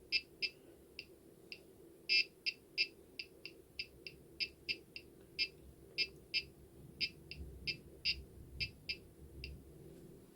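Gotek floppy emulator clicking in quick, uneven runs of short sharp ticks, about two to four a second, as it steps through tracks while the Amiga 2000 boots from a Workbench install disk.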